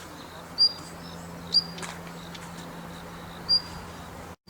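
Daurian redstart giving a short, high, thin call three times, about a second apart, with a faint click just after the second call.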